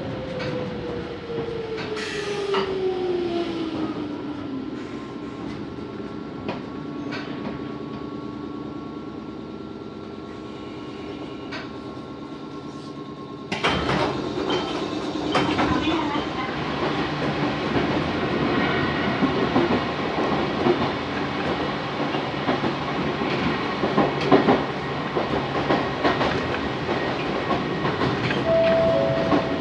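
Electric train heard from inside the carriage. A motor whine falls in pitch as the train slows at a station, then the stopped train hums quietly. About halfway through, the sound jumps to the louder rumble and wheel clatter of the train running on the track.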